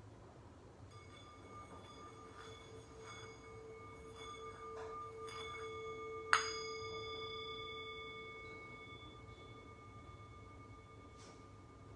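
A metal singing bowl sounded with a wooden mallet to mark a moment of stillness: its ringing hum starts softly about a second in and swells as the mallet works the rim, then the bowl is struck once about six seconds in and rings on, slowly fading.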